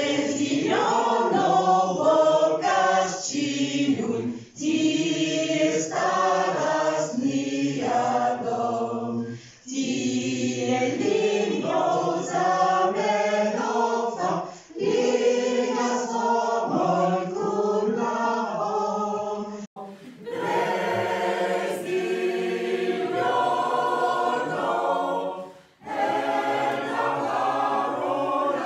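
A choir singing in phrases of about five seconds with short pauses between them. About two-thirds of the way through there is a cut to a different recording of group singing.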